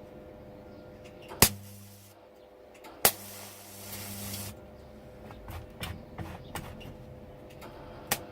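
Wire-feed MIG welder striking short welds: a sharp crack as the arc strikes, a brief buzzing hum, then a second strike about three seconds in that buzzes and hisses for about a second and a half before stopping.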